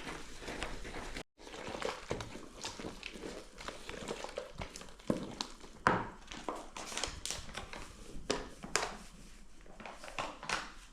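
Hands mixing and kneading chapati dough in a bowl: irregular soft knocks, taps and squishes, with a brief dropout about a second in.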